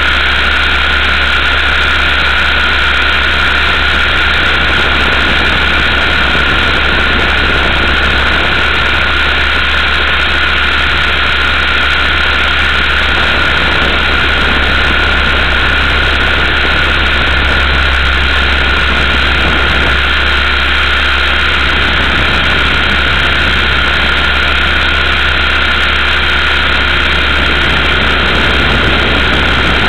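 Multiplex Funcopter RC helicopter in flight, heard up close from its onboard camera: the electric motor and rotor make a steady whine with high held tones over a constant rush of rotor and wind noise.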